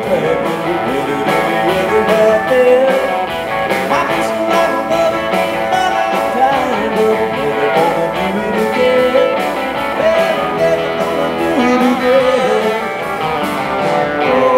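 Live country-rock band playing: twangy electric guitars, bass and drum kit, with a voice singing at times.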